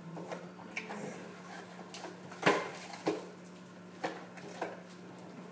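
Kitchen utensils and dishes being handled on a counter: a handful of separate clicks and clatters, the loudest about two and a half seconds in, over a steady low hum.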